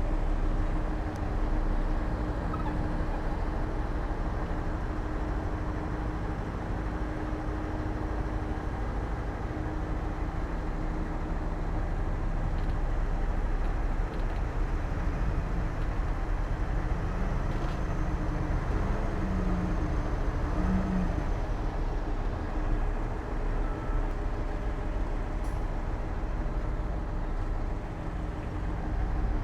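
Heavy diesel earthmoving machinery running steadily under load, a constant engine drone with a deep rumble.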